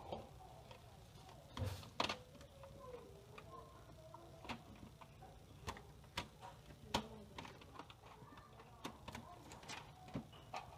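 Irregular sharp plastic clicks and snaps as a laptop keyboard is pried and lifted out of its plastic top case, the loudest about two seconds and seven seconds in.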